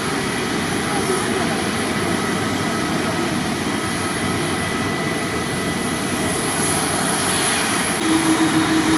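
Jet airliner engines running with a steady rushing noise and a thin, steady high whine; near the end a low hum joins in and the sound grows louder.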